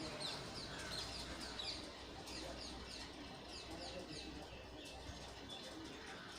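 Small birds chirping: short high notes that fall in pitch, several a second, thinning out after about four seconds.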